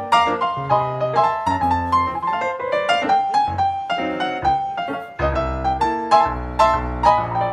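Background piano music: a steady run of piano notes over held low bass notes, with a short dip in level about five seconds in.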